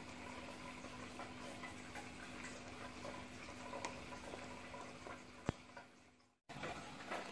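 Faint scattered light clicks and ticks over a low steady hum, with one sharper click about five and a half seconds in; the sound fades and drops out completely for a moment near the end before resuming.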